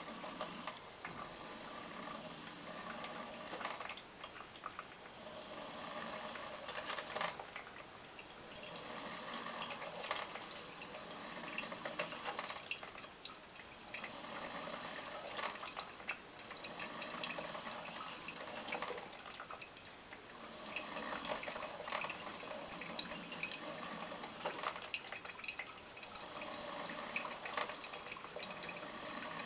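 Severin drip coffee maker brewing: water being heated and pushed up through the machine in irregular gurgling, sputtering surges every few seconds, over a steady hiss.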